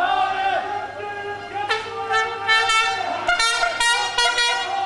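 A loud, high-pitched voice chanting a melodic line in held notes that break every fraction of a second, louder from about two seconds in.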